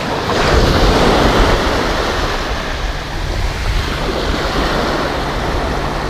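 Ocean surf breaking and washing up the sand, a wave swelling loudest in the first second or so, with wind rumbling on the microphone underneath.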